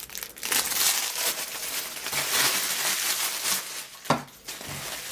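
Packaging crinkling and rustling as items are handled and unwrapped, with a sharp click about four seconds in.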